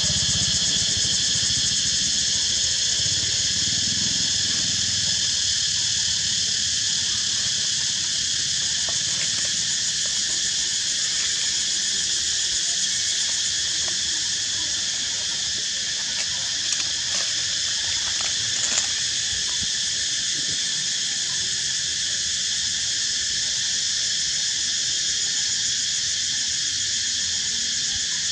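Steady, high-pitched chorus of insects droning without a break. A low rumble fades out over the first few seconds, and a few light clicks come about two-thirds of the way in.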